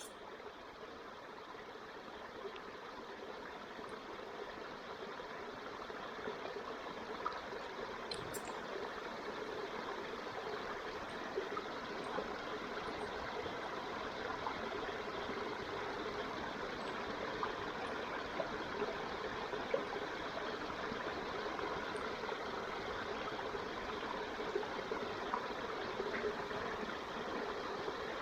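Campfire burning: a steady hiss with scattered small crackles and pops, slowly growing louder as the fire takes hold.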